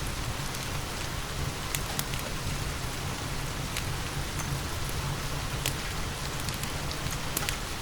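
Steady rain mixed with a crackling wood fire: an even hiss over a low rumble, with scattered sharp pops about once or twice a second.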